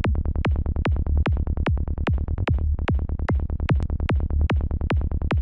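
Psytrance kick and bass loop in D playing from the Kick N Bass Gel software synth: a fast, even pulse of punchy kicks that drop in pitch, over a steady low bass.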